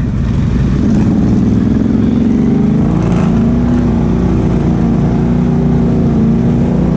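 Can-Am Outlander XMR 1000 ATV's V-twin engine with a Big Gun exhaust, running steadily under way. Its pitch wavers slightly in the first few seconds, then holds steady.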